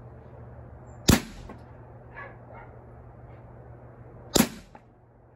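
Two shots from a Hatsan Blitz .30-calibre PCP air rifle, a little over three seconds apart, each a sharp crack with a short tail.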